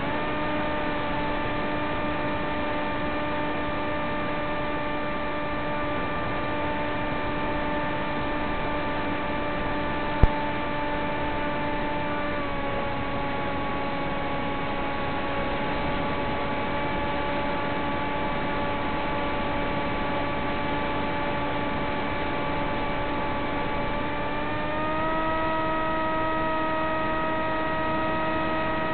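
Steady hum of a fixed-wing FPV plane's electric motor over a constant hiss. Its pitch dips slightly about twelve seconds in and rises again near the end. There is one sharp click about ten seconds in.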